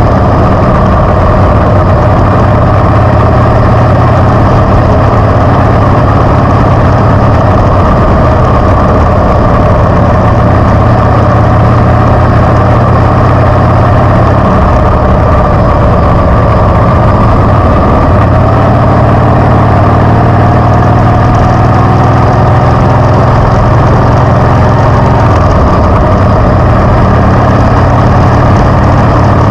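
Harley-Davidson motorcycle V-twin engine running loudly and steadily, its pitch drifting slightly up and down.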